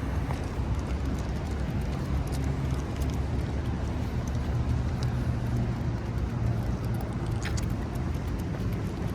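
Steady low rumble of road traffic, with a car engine's hum swelling in the middle and a few faint clicks.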